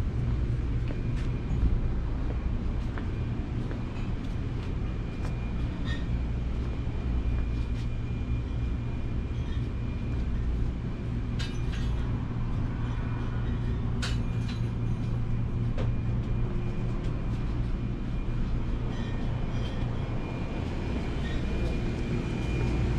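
Steady low machine hum with a low rumble under it, broken by a few light clicks and knocks, the sharpest about eleven and fourteen seconds in.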